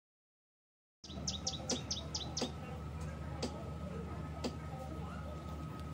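Sound drops out for about the first second, then a small bird gives a quick run of about six chirps. Sharp ticks follow about once a second over a steady low hum.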